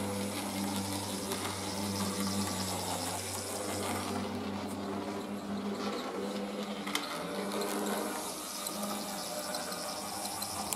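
Piko BR 82 H0 model steam locomotive running in reverse: the small electric motor and gears hum steadily with rail noise, the hum fading about three seconds in and growing louder again about eight seconds in. A single sharp click comes about seven seconds in.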